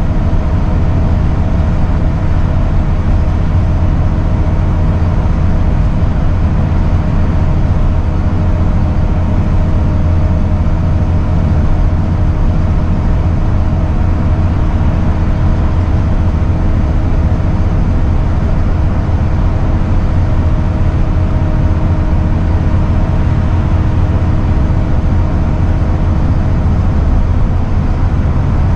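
Inside a Scania L94UB/Wright Solar single-deck bus cruising at steady speed: the rear-mounted diesel engine's even drone with road and tyre noise, holding steady with no gear changes.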